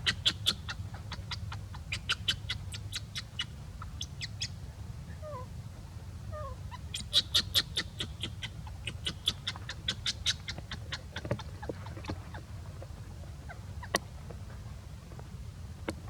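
Animal calls: rapid trains of short, sharp chirps in several bursts, with a couple of soft falling squeaks, over a steady low rumble.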